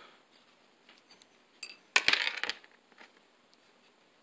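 Small metal jewelry parts clinking on a hard surface: a short cluster of light, bright clinks and clicks about two seconds in, with faint room noise around it.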